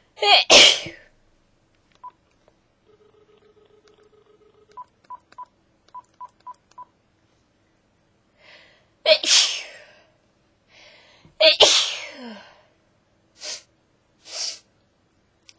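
A person sneezes loudly, then a phone plays a steady tone followed by seven short keypad beeps as a number is dialed. Two more loud sneezes follow, each after a drawn-in breath, and then two short breathy sounds near the end.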